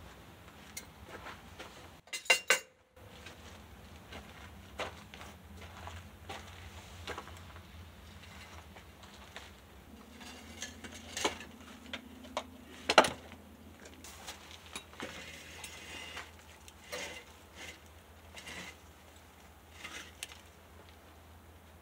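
Metal tools and parts clinking and knocking in scattered, irregular taps, with a few louder knocks, over a faint low steady hum.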